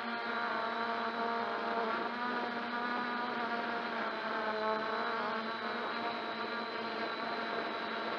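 MJX Bugs 2W quadcopter's brushless motors and propellers buzzing in flight, picked up by a camera mounted beneath the drone: a steady whine of several tones that rise and fall a little in pitch as the motors speed up and slow down.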